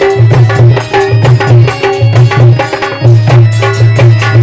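Instrumental interlude of a Hindi devotional bhajan: tabla or dholak strokes in a steady rhythm under a melody line played on a keyboard or harmonium.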